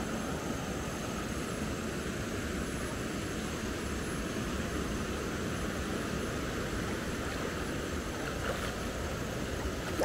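River water rushing steadily over rocks: an even, unbroken wash of noise.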